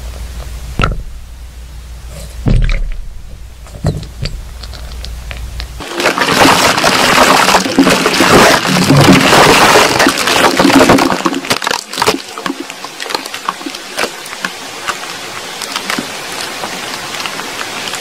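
Underground sound recording: a steady low hum with three dull thumps, which the uploader labels blasting and rock-drill work at 17 m depth. About six seconds in it cuts to a loud rushing hiss with crackles that thins after about five seconds into scattered crackling and ticks, labelled by the uploader as soil trickling down and water at 5 m depth.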